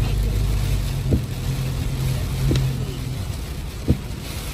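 Inside a car driving in heavy rain: a steady engine and road hum with rain on the car, and a short thud from the windscreen wiper about every second and a half.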